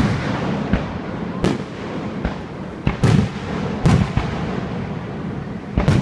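Fireworks display: aerial shells bursting in a quick, uneven series of about eight booms, with a low rumbling echo between them.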